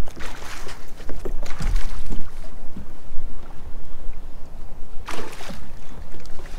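Water sloshing and splashing around a fishing kayak in about three short bursts, over a steady low rumble.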